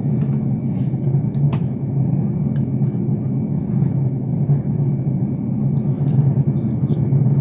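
A steady, loud low rumbling drone with no clear beats or breaks.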